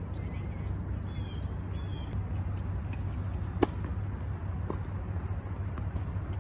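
A tennis ball struck by a racquet with one sharp, loud pop a little past halfway, followed by two fainter knocks from the far end of the court. A bird chirps several times in the first two seconds over a steady low rumble.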